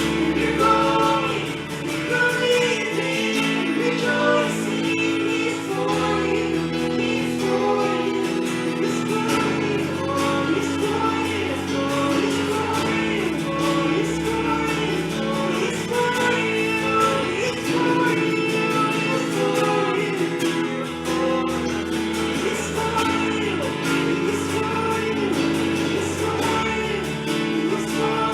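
Worship song: a group of voices singing together over a band, with sustained chords that change every few seconds.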